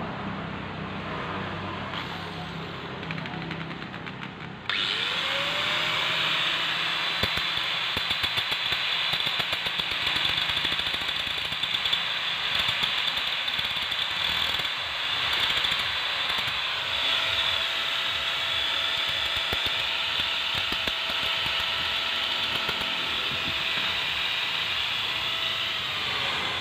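Corded electric drill switched on about five seconds in and running steadily, its chuck pressed against an angle grinder's spindle. A steady whine joins in about seventeen seconds in.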